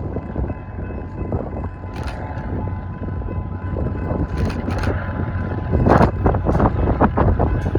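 A train running close by between horn blasts: a steady low rumble with a series of sharp clanks that come thickest near the end, and wind buffeting the microphone.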